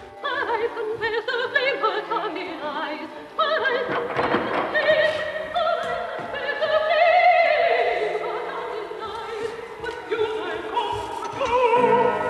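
Opera record playing on a horn gramophone: a singer with strong vibrato over orchestra, the voice climbing to a long held high note in the middle and falling away.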